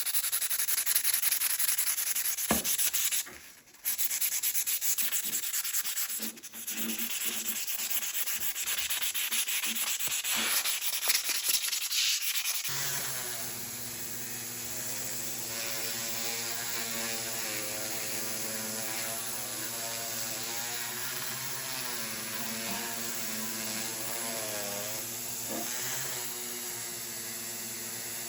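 Sandpaper rubbing back and forth on a steel Stihl chainsaw guide bar, with a couple of brief pauses. About halfway through it gives way to a steady motor hum whose pitch wavers slightly.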